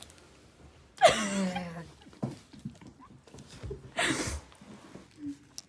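A person's wordless vocal sounds while eating: a loud groan falling in pitch about a second in, then a sharp breath-like burst about four seconds in, with small clicking mouth noises between.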